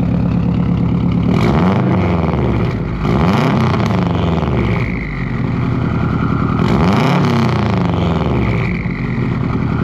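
2005 Subaru Impreza WRX STI's turbocharged 2.5-litre flat-four idling through a catless downpipe and a Tomei Expreme Ti titanium cat-back exhaust. It is revved three times, each rev rising and falling back to idle. It is loud and rowdy because the system is catless.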